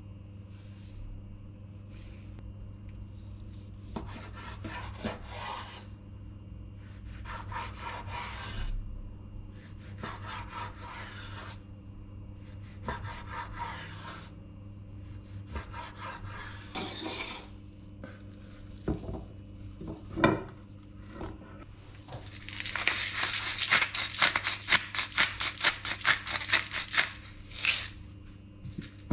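A chef's knife slicing raw chicken breast on a bamboo cutting board, each stroke a short rasping scrape of the blade against the wood, with a few sharp knocks. Near the end comes a louder, denser run of quick scrapes and clicks.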